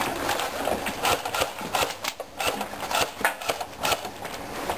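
Airsoft gunfire: irregular sharp clicks and snaps, several a second.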